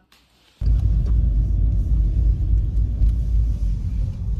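A moment of near silence, then a loud low rumble starts about half a second in and carries on unevenly, with no clear pitch.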